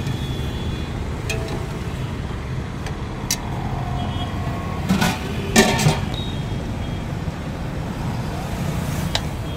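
Steady rumble of road traffic with a few sharp clinks of a steel serving spoon against steel pots, the loudest cluster about five to six seconds in.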